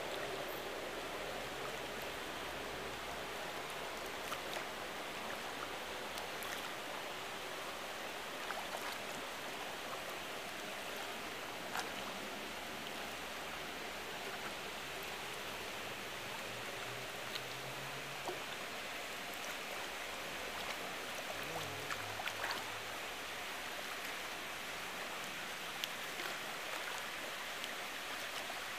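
Steady rushing noise of pool water, with small splashes or clicks now and then.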